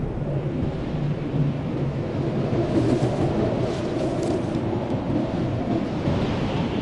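Blizzard wind blowing steadily, a deep rushing noise with faint brief hissing gusts.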